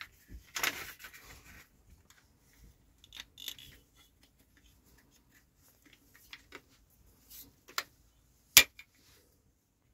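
Small metal clicks and rattles as a saw's metal frame and blade fittings are handled and fitted together, with a brief rustle early and one sharp click near the end, the loudest.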